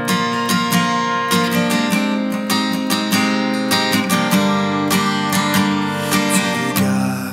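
Acoustic guitar strumming chords in an instrumental interlude between sung verses of a hymn, with a steady rhythm of strokes and no voice.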